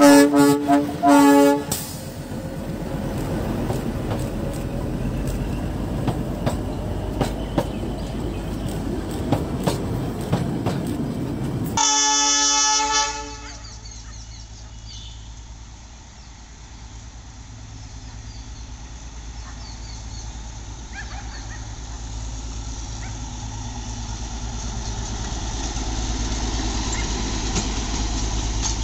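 Narrow-gauge NDM6 diesel locomotive of the Darjeeling Himalayan Railway sounding its horn in two short blasts, then running with rail clatter. About twelve seconds in, another horn blast of a second or so follows, and after it a steady low diesel engine hum that grows louder as the locomotive passes.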